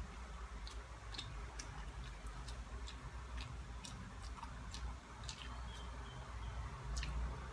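Wet mouth clicks and lip smacks from someone chewing soft boiled banana, coming unevenly about twice a second, over a low steady hum.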